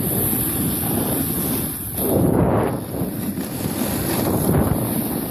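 Rushing wind buffeting a phone microphone as a skier runs down a groomed piste, mixed with the hiss of skis on snow; it swells louder about two seconds in.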